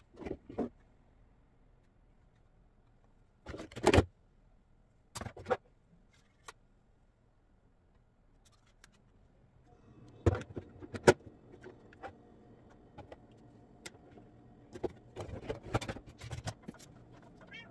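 Household items and plastic containers being handled, knocked together and set down: separate sharp clacks with quiet gaps between them, turning into a busier run of clatter near the end. A faint steady hum comes in about halfway through.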